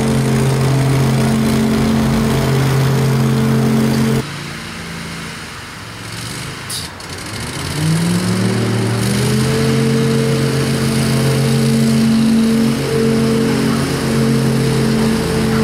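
Scag Tiger Cat zero-turn mower's engine running steadily under load. About four seconds in the sound drops suddenly to a quieter level, then the engine's pitch climbs over a couple of seconds and settles back into a steady, loud run.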